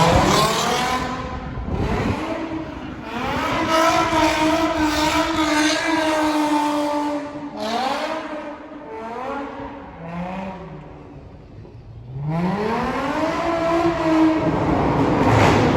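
Nissan 350Z's V6 engine revving hard in repeated long pulls: the pitch climbs, holds high for a few seconds, drops, then climbs again, typical of the car being thrown into a drift or donuts.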